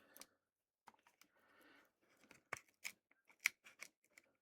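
Small piece of plastic being peeled and pried off inside an opened headphone earcup: faint crinkling, then a run of sharp little clicks in the second half.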